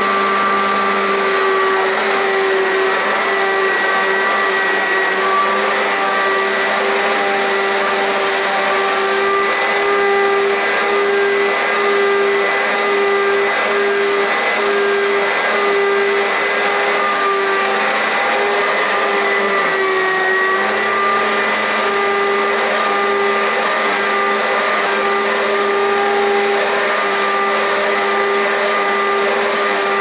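Oreck XL2 upright vacuum cleaner running steadily with a constant motor whine while being pushed along the floor; its pitch sags briefly about twenty seconds in.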